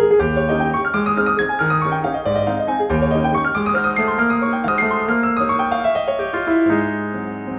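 Background piano music: a keyboard piece with sustained bass notes under flowing higher notes.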